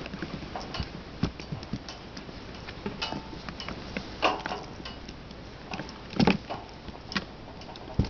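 Five-week-old kittens' paws and claws tapping and scrabbling on a tile floor as they wrestle: irregular light clicks, with a few louder knocks about four and six seconds in and just before the end.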